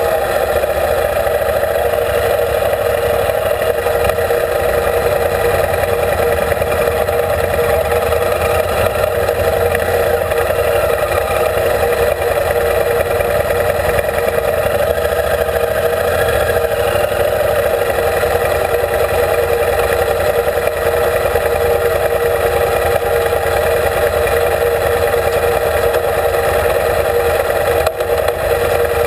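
Motorcycle engine running at a steady cruise on a gravel road, with tyre and wind noise.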